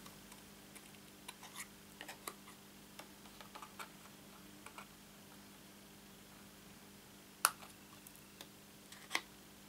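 Small craft scissors snipping through cardstock: a scatter of faint snips and clicks over the first few seconds, then two sharper snips near the end.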